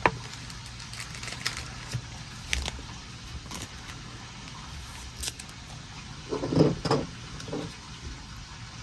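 Trading cards being handled and flipped through: scattered light taps and rustles over a steady low hum.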